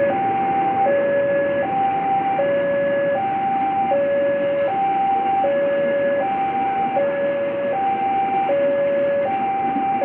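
Two-tone hi-lo siren switching steadily back and forth between a lower and a higher note, each held for under a second. Beneath it is the steady rumble of passenger coaches running past on the track.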